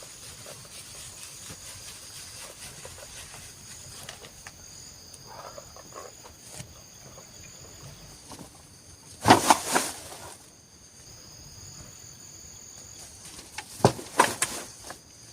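Forest insects, crickets or cicadas, buzzing steadily and high-pitched, dropping out for a while and then coming back. Twice, about nine seconds in and again near the end, a short loud burst of knocks and rustles breaks over it.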